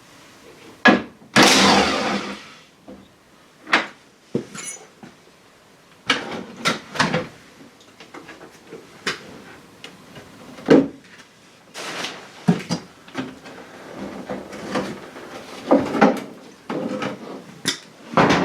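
Irregular knocks, clicks and clatter of hand tools and metal parts being handled while parts are taken off a car. A longer noisy burst comes about a second and a half in.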